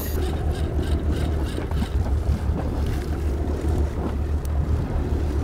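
Boat engine running steadily, a low hum, with wind rumbling on the microphone.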